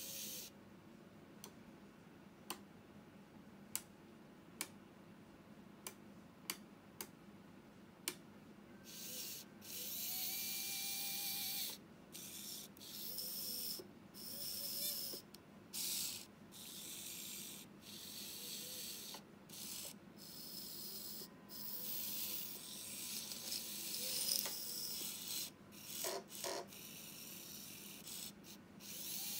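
Tiny electric gear motors of a micro-scale RC Liebherr 974 excavator model whirring in short, high-pitched bursts as the boom, arm and bucket move. A series of sharp single clicks comes first, over the first eight seconds or so.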